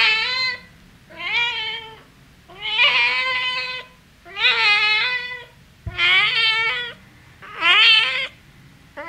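Domestic cat meowing over and over, about six meows each roughly a second long with a wavering pitch, coming one every second and a half or so.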